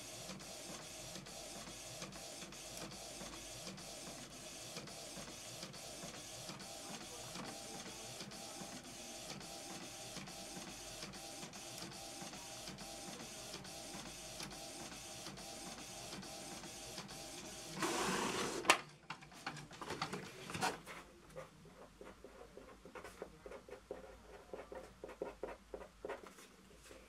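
Canon inkjet printer printing: a steady mechanical whir with a regular click at each pass of the print head, about three a second. About 18 seconds in it ends with a short louder whir and a sharp clack as the printed sheet is finished, followed by scattered faint clicks and rattles.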